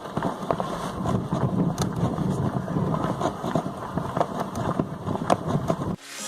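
Outdoor street noise with wind on the microphone and a steady rumble like passing traffic, broken by scattered short clicks. Music fades in at the very end.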